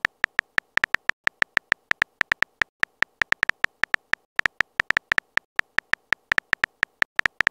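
Phone keyboard click sound effect for on-screen typing: a fast, slightly uneven run of short ticking taps, about seven or eight a second, one per letter typed.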